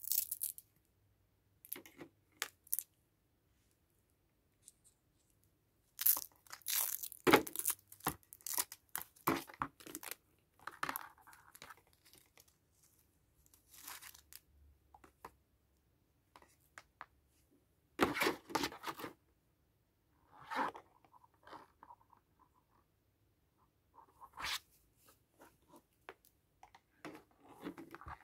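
Irregular bursts of ripping, crinkling and rustling as a braided USB charging cable is unwound, its black cable strap pulled open and clear plastic packaging handled. The loudest stretches come about six to ten seconds in and again around eighteen seconds.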